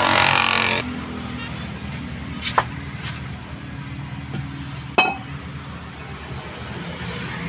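Steel parts of a truck's planetary hub reduction clinking as they are handled: three sharp metallic clinks, the loudest about five seconds in with a short ring. A steady low hum runs underneath, after a short rush of noise in the first second.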